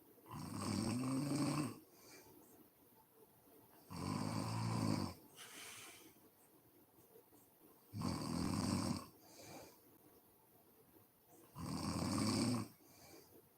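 A woman snoring in deep sleep: four loud, rumbling snores about four seconds apart. A short, fainter breath follows most of them.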